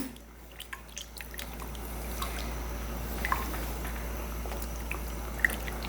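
Pot of curried coconut-milk broth simmering: a soft, steady bubbling that grows a little louder in the first two seconds, with scattered small pops.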